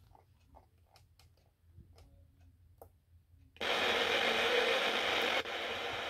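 Faint clicks of the tuning buttons on a Sangean HDR-15 clock radio, then, about three and a half seconds in, the radio's speaker comes on loud with FM static as it is tuned to an empty frequency between stations. The static dips briefly near the end as the radio steps to the next frequency.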